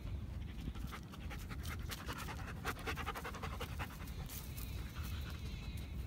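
A dog panting close by, fast and rhythmic, strongest through the middle and easing off after about four seconds, over a steady low rumble.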